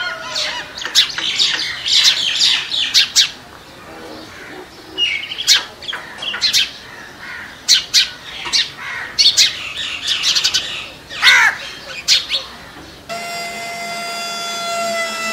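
Birds chirping with many short, high calls; about thirteen seconds in this gives way abruptly to the steady whine of the miniature tractor's small motor.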